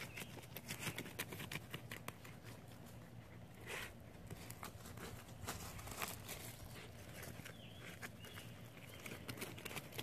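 Jack Russell–Shih Tzu mix puppies scratching and digging in dirt and gravel with their paws: rapid, irregular scrapes and clicks, with a few louder scrabbles about four and six seconds in.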